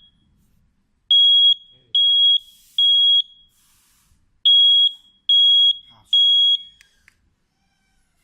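anka sci-tech AJ718 standalone smoke detector sounding its alarm under test: loud, high single-pitched beeps in groups of three with a pause between groups, the standard three-beep fire-alarm signal. Two full groups sound, then it stops about two-thirds of the way in, followed by a few faint clicks.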